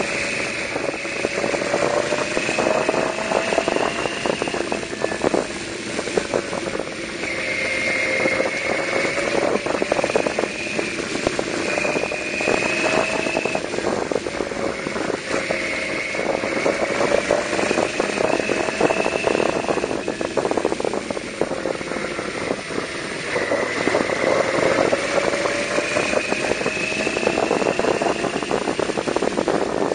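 Yamaha V-Max 1200's V4 engine running under way, its pitch rising and falling gently with the throttle through the bends, with wind rushing over the rider-worn microphone.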